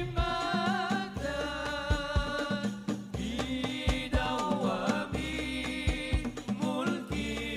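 Background music: a wavering sung melody over a steady drum beat.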